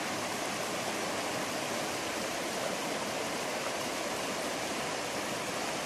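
Shallow, fast river rushing over stones in rapids: a steady, even wash of flowing water.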